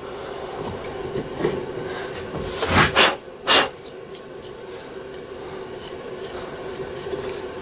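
Benchtop mini mill running with a steady hum after its end mill has gone through the Delrin. Three sharp knocks come close together about three seconds in.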